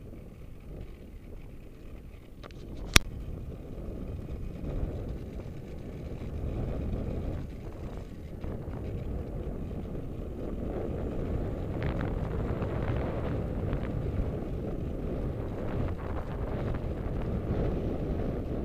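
Wind buffeting an action camera's microphone on a moving road bicycle, over the hum of tyres rolling on coarse chip-seal; the rush grows louder partway through. A single sharp click about three seconds in.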